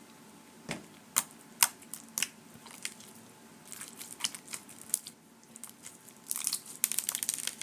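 Clear fishbowl slime with beads being squeezed and worked by hand: scattered sharp clicks and pops, then a dense run of crackling near the end.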